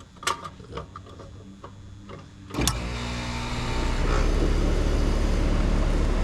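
Residential heat pump outdoor unit starting up in heat mode: a few light clicks and knocks, then about two and a half seconds in a sharp clack as power goes back on, and the compressor and fan start into a steady running hum that swells over about a second and then holds. The start shows the replaced defrost control board now lets the unit run.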